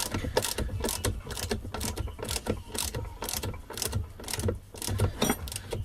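Ratchet wrench clicking rapidly, about four clicks a second, as the engine sprocket bolt on a Lambretta scooter engine is run down until it seats.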